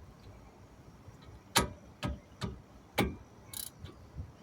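Ratchet wrench with a 14 mm socket clicking on a brake caliper bolt: four sharp clicks about half a second apart, then a short scrape. The bolt is being turned the tightening way.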